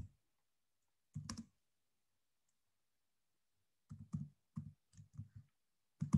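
Typing on a computer keyboard: one keystroke at the start, a short cluster of keystrokes about a second in, then a quick run of keystrokes from about four seconds in.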